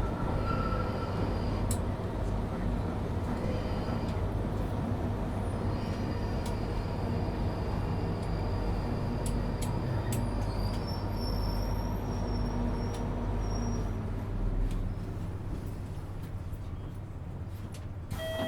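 London Underground Northern line train running in the tunnel and drawing into a station: a steady low rumble with a faint high whine in the middle seconds, the rumble easing off over the last few seconds as the train slows.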